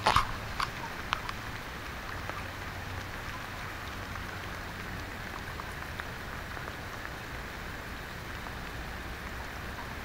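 Steady rain falling, an even hiss of drops, with a few small ticks in the first second or so.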